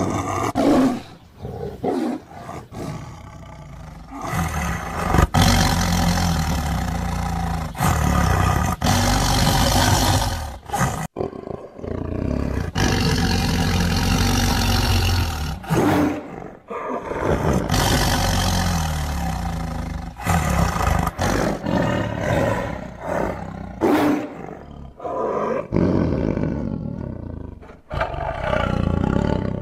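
Tiger roaring again and again: a run of long, loud roars separated by short pauses.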